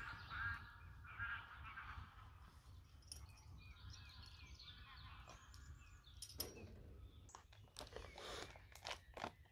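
Faint outdoor ambience with small birds chirping, short repeated calls in the first couple of seconds. A scattering of sharp clicks and rustles comes in the last three seconds.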